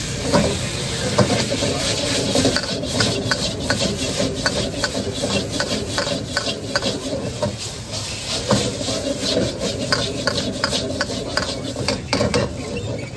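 A metal ladle scraping and clanking against a steel wok as noodles are stir-fried and tossed, in quick, irregular strokes several times a second. Under it runs a steady roar from the gas burner, and the strokes thin out near the end.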